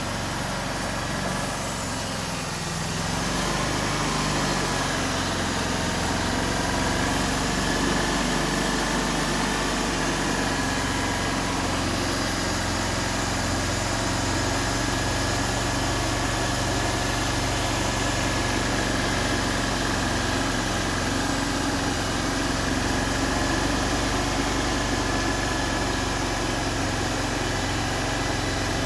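Wood-Mizer LT40 portable band sawmill running steadily while its band blade feeds forward through a log, sawing a board. It gets a little louder about three seconds in, and a thin steady whine rides over the machine noise.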